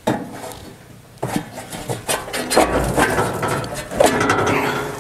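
Sheet-metal swing-out side hood panel on a tractor being unlatched and swung open: a sharp clank at the start, then rattling and scraping of the metal panel, with more knocks about a second in and again about four seconds in.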